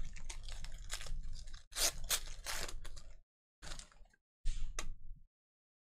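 Foil wrapper of a trading card pack crinkling and tearing open: a run of crackly rustling for about three seconds, then two shorter rustles.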